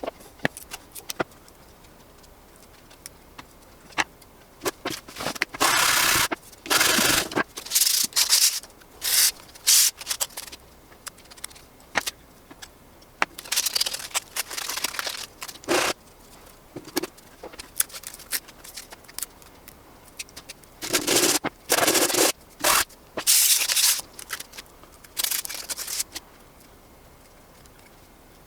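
Hand sanding of PETG 3D-printed parts: irregular runs of rubbing strokes with short pauses between, cleaning off stringing.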